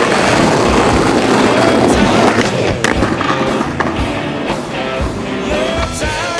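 Skateboard wheels rolling over concrete pavement, a loud steady rumble that eases after about two and a half seconds, followed by a few sharp clacks of the board, with music underneath.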